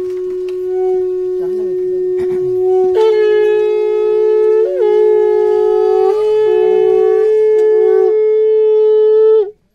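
Two conch shells blown during the puja at a hill shrine: one long, loud, steady note, joined about three seconds in by a second, higher note. The lower note stops near eight seconds, and the higher one cuts off abruptly just before the end.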